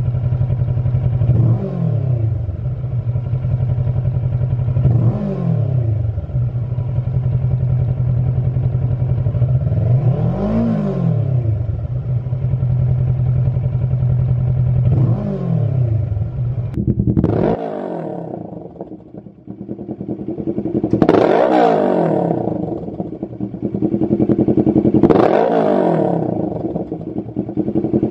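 Kawasaki Versys 650's 649 cc parallel-twin engine idling and being blipped. First it runs through the stock silencer with four rev blips. After an abrupt change about two-thirds of the way through, it runs through a Lextek MP4 aftermarket silencer and is revved twice more, louder at the peaks.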